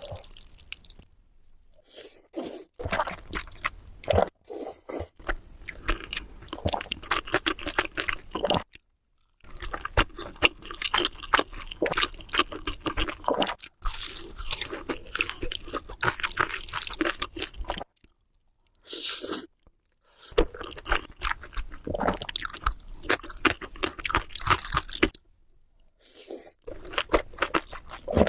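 Close-miked eating: crisp crunching bites and chewing of food, in several short stretches split by brief silent cuts.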